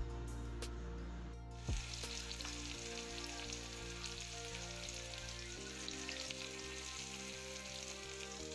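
Onion wedges frying in hot oil in a wok: a steady sizzle that starts about a second and a half in, over background music. There is a low thump at the start and another just as the sizzle begins.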